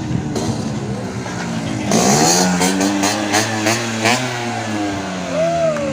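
Tuned two-stroke Vespa racing scooters running at high revs, their engine notes rising and falling as they change speed, with several machines sounding together and loudest from about two seconds in.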